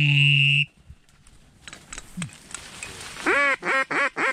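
Duck quacking: one long, drawn-out quack, then a quick run of about five shorter quacks near the end, like a hen mallard's quack series.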